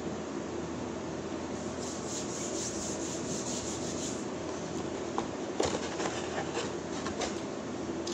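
Palms rubbing together for a couple of seconds, a dry brushing sound, then a few light crinkles and taps as a paper-wrapped sandwich is handled, over a steady low hiss.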